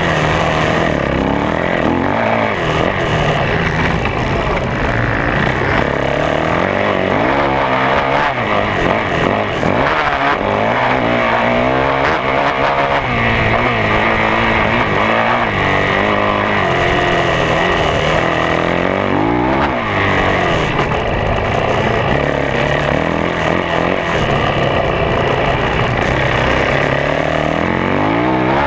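2011 Yamaha YZ450F's single-cylinder four-stroke engine, heard from a camera on the bike itself, revving up and dropping back over and over as the rider accelerates out of turns, shifts and rolls off around a motocross track.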